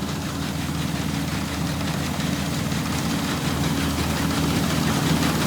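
Combine harvester engine running steadily with a deep hum, growing gradually louder.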